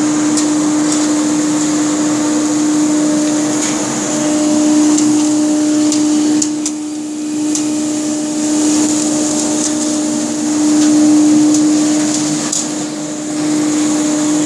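CNC wood router running: a steady high-pitched whine of the spindle motor over the rush of a dust collector, with a few light ticks.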